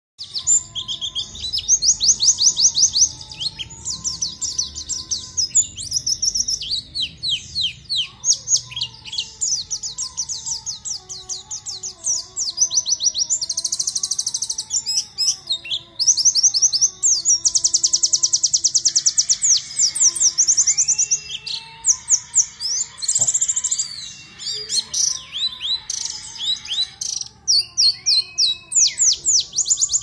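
Caged white-eye (pleci) singing nonstop: long runs of rapid, high chattering trills and twittering phrases, with hardly a pause.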